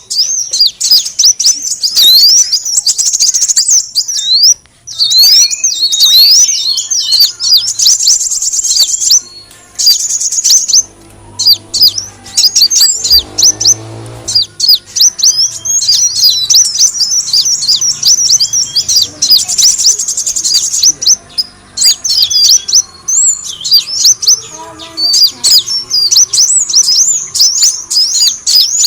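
Kolibri wulung sunbird calls from a bird-lure recording: rapid, high-pitched chirps and twittering trills, dense and almost unbroken.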